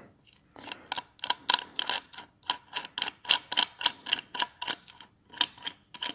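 Limb fixing bolts being unscrewed from the riser of a club takedown recurve bow, giving a run of quick, irregular small clicks and ticks.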